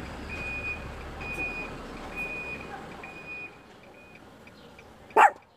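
Reversing alarm of a Volkswagen delivery truck beeping about once a second over a low engine rumble. After about three and a half seconds the beeps turn faint and short, and a sharp knock comes near the end.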